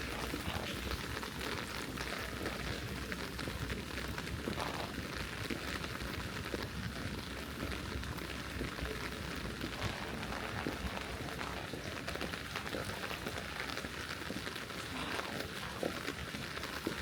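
Steady rain falling, a constant hiss with many small drops ticking.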